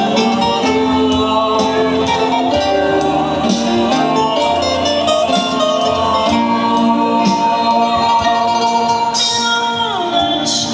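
Music with a singer backed by traditional instruments, playing continuously over a steady beat.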